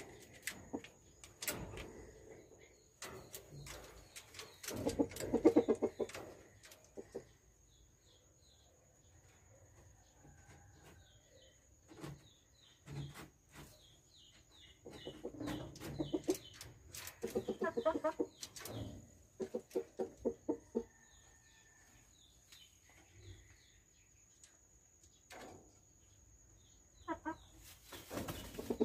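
Gamefowl chickens clucking in several short, rapid bouts, with scattered sharp clicks between them and a faint steady high whine underneath.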